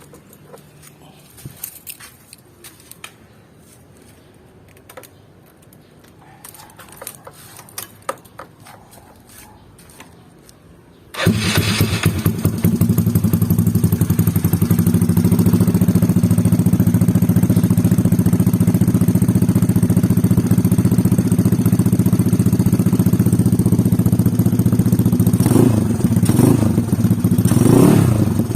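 Yamaha Mio Sporty scooter's single-cylinder engine through a Daeng Sai 4 aftermarket exhaust: after about eleven seconds of quiet with small clicks, it starts and settles into a steady idle. Near the end, a few quick throttle blips rise and fall in pitch.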